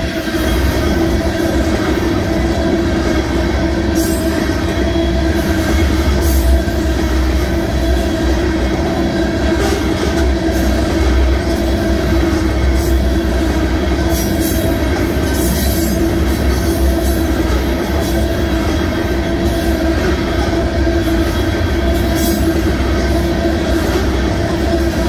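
Union Pacific freight train's tank cars rolling steadily past a grade crossing: a continuous rumble and rattle of steel wheels on rail, with a few sharp clacks and a steady tone running over it.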